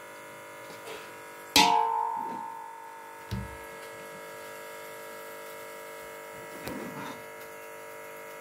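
A steel ladle strikes the steel biryani pot with a sharp clang that rings and fades over about a second. A duller knock and softer scraping follow as chicken curry is spooned onto the rice, over a steady electrical hum.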